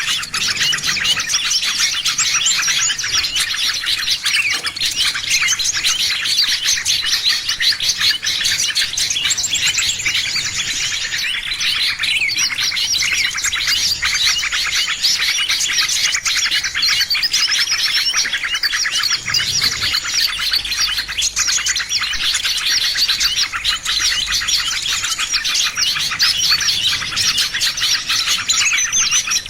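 Dense chorus of many small songbirds chirping and twittering together without a break, a crowded mix of rapid high calls.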